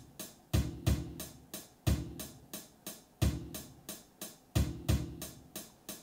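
Sampled drum machine loop playing a programmed beat: deep kick drum hits, some in quick pairs, over lighter hi-hat and snare samples, about three hits a second.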